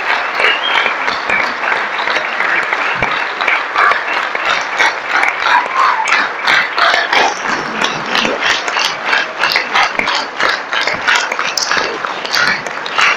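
Theatre audience applauding, a dense clatter of hand claps in which single sharp claps stand out more as it goes on.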